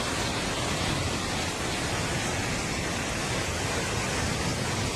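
Steady, even rush of floodwater, with no distinct events.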